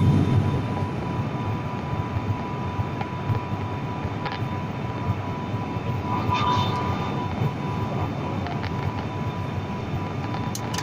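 Airliner cabin noise during the landing: a steady rumble of engines and airflow with a thin, steady high tone over it and a few faint ticks.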